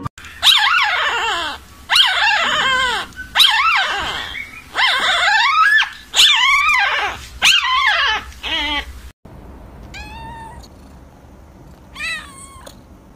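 Newborn puppy crying: about seven loud, high-pitched falling wails, one every second and a half or so. About nine seconds in they stop abruptly, and a cat meows softly three times.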